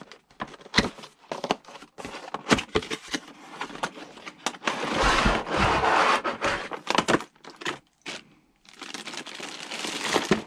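Cardboard model-train box being handled with sharp taps and scrapes, then a long stretch of rustling and sliding as the inner tray is drawn out of its sleeve, and plastic wrap crinkling around the car near the end.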